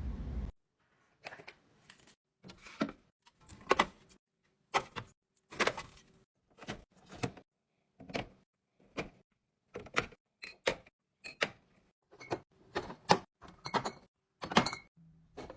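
Kitchen items being handled and set down: a long irregular run of sharp clicks, knocks and light clinks, about one or two a second, some with a brief ring. A steady noise cuts off half a second in, just before they start.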